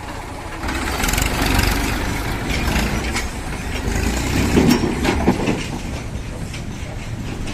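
Heavy diesel engine of an earth-moving machine running, rising to a louder working pitch about a second in and easing off again after about five seconds, with a few sharp knocks and clatter near the middle.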